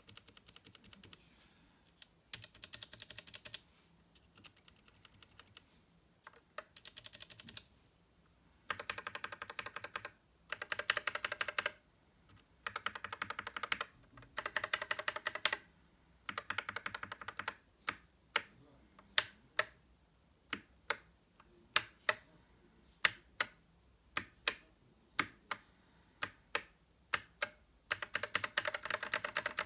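Gateron Milky Yellow mechanical keyboard switches clacking under key presses, lubed and unlubed switches sounded for comparison. Rapid flurries of presses come first, then single presses about two a second, then another fast flurry near the end.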